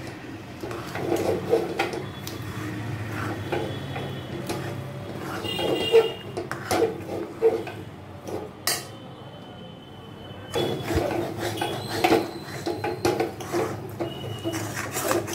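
Metal spoon scraping and clinking against a steel kadhai while stirring thick semolina cooked in milk, which is soaking up the milk and thickening. The stirring pauses briefly about two-thirds of the way through.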